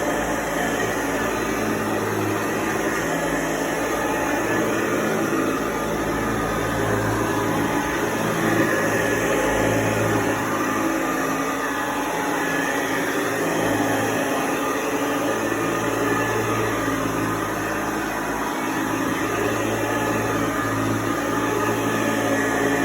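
Hoover Model 634 vintage upright vacuum cleaner running: a steady motor hum under an even rush of air, holding at much the same level throughout.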